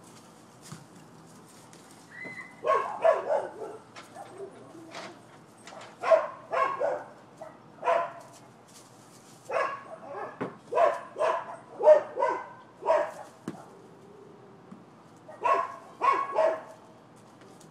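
Dogs barking repeatedly in short runs of two to four barks, with pauses of one to three seconds between runs.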